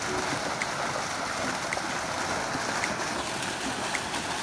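Dense, continuous splashing of a mass of fish thrashing at the water surface as they are crowded together in a harvest net.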